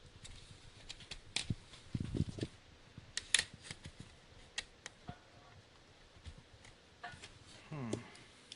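Scattered small clicks and taps from handling and prying at an HP EliteBook 6930p laptop's plastic and metal parts during disassembly, with a few duller knocks about two seconds in.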